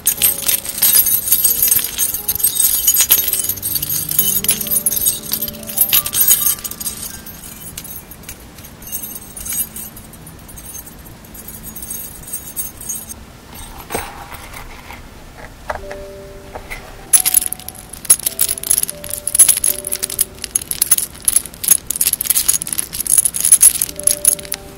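Metal and pearl earrings jingling and clinking as they are handled close to the microphone, with soft background music. The clinking thins out for a stretch in the middle, then comes thick and fast again for the last several seconds.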